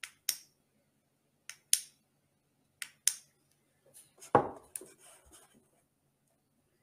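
Flashlight push-button switch clicked three times, each a quick double click, as the light is switched off and on. About four seconds in there is a louder thump followed by brief handling noise as the flashlight is put down.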